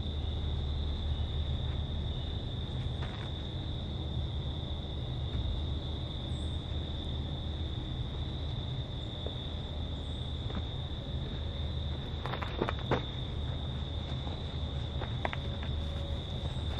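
Steady high-pitched insect chorus, such as crickets, over a constant low rumble, with a few sharp clicks about twelve to thirteen seconds in.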